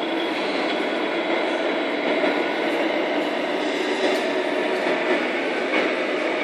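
Steady engine rumble from a radio-controlled Tamiya scale truck, running without change in pitch or level.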